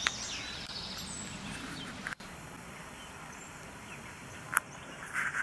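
Outdoor ambience with birds chirping, clearest in the first two seconds, over a steady hiss. A few sharp clicks or knocks come near the end.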